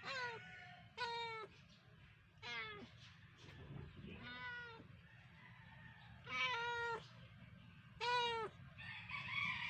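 Cats meowing repeatedly: about seven short mews, each well under a second long, coming roughly every second or so with uneven gaps.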